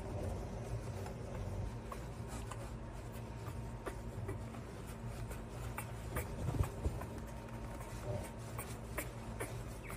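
Terry-cloth towel rubbing a wet puppy dry: soft fabric scrubbing and rustling with scattered light taps, a slightly louder bump a bit past halfway, over a steady low hum.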